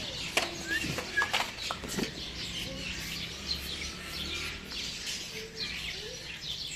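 Birds chirping and calling, many short high chirps overlapping.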